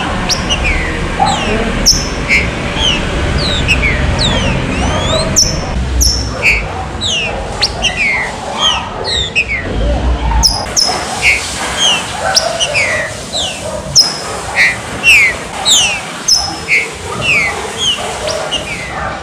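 Green-winged saltators (trinca-ferro) singing: many short, sharp, falling whistled notes, several a second. A low rumble runs under the song and stops about halfway through.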